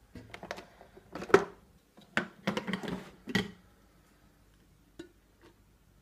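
Plastic knocks and clatter as a Beko filter coffee maker's parts are handled: the filter basket, the lid and the glass jug. A quick run of sharp clicks and knocks over the first three and a half seconds, the loudest about a second and a half in, then two faint taps near the end.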